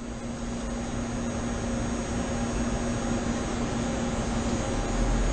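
Doosan Puma 400LC CNC lathe moving its drag-along tailstock along the bed: a steady machine whir with a constant hum, slowly growing louder, with a low rumble coming in near the end.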